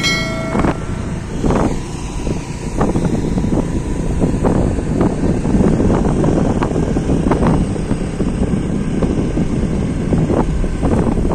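Wind buffeting the microphone over steady road and engine noise while riding a scooter in traffic, with scattered short knocks, and a brief horn-like tone at the very start.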